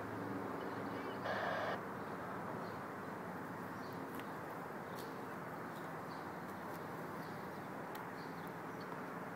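Outdoor rail-side ambience: a steady low rumble, with a train's engine hum fading out in the first couple of seconds, a brief louder sound about a second and a half in, and scattered faint bird chirps.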